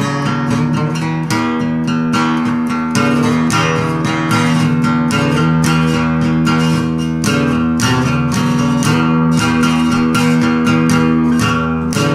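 Guitar music with no singing: a guitar strummed in a steady, even rhythm of about three to four strokes a second, ringing on the same few low notes.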